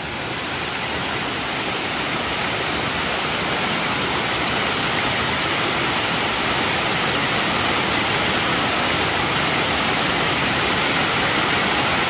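Waterfall: water cascading over rock ledges and splashing into a pool, a steady rushing that grows a little louder over the first few seconds.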